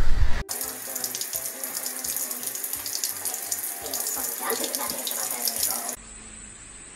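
Water running from a kitchen tap into a sink, a steady splashing hiss that starts about half a second in and cuts off abruptly about a second before the end. Just before it, a loud close-up noise from a dog stops suddenly.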